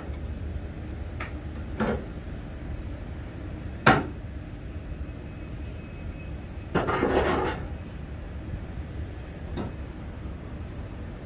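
A few separate metallic clanks, the loudest about four seconds in with a brief ring, and a short rattling clatter a little after the middle, over a steady low rumble.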